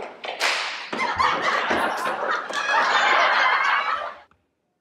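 A sharp smack about half a second in, then a few seconds of loud laughing that stops suddenly, as one boy knocks another to the floor in slapstick horseplay.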